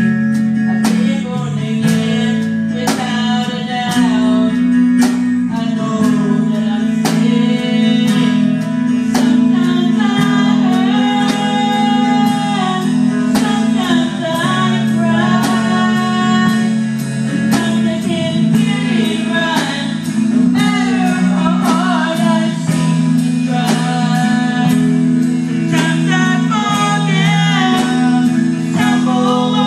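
A small live band playing a gospel song: a woman singing over strummed guitars, with a drum kit keeping a steady beat.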